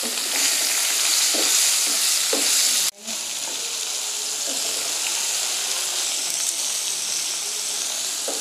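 Pointed gourd pieces sizzling steadily as they fry in hot oil in a non-stick wok, stirred with a wooden spatula. The sizzle drops out for an instant about three seconds in.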